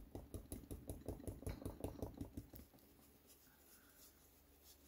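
Stencil brush dabbing paint through a plastic circle stencil onto the painted surface: quick soft taps, about five a second, that fade to faint scattered taps about halfway through.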